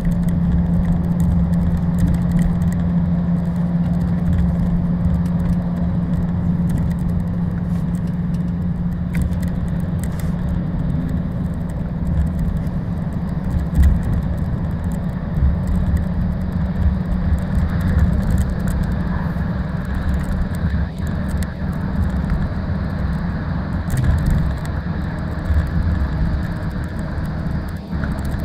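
Inside a motorway coach at speed: a steady engine drone with a constant low hum, over road rumble from the tyres. The hum eases slightly about halfway through.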